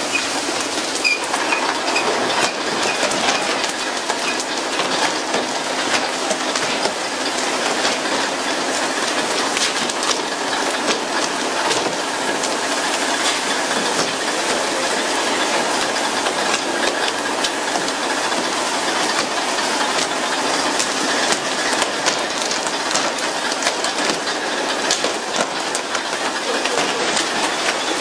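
Steady hissing splash of water jetted from a pole-and-line tuna boat's hull sprinklers onto the sea surface, with scattered sharp clicks and knocks throughout.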